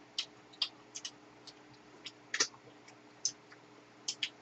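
Eating sounds: irregular soft clicks of chewing and mouth noises, about ten in four seconds, over a faint steady hum.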